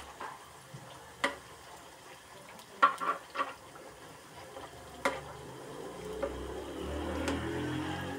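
Potato fries deep-frying in hot oil in a black wok, a steady sizzle, while a metal spatula stirs them and clinks against the pan several times, the loudest clinks about three seconds in.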